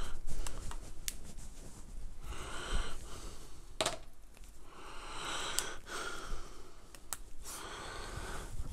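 A man breathing audibly close to the microphone, a few soft breaths a couple of seconds apart. Between them come light clicks and handling noise from small USB cables being picked up and laid down.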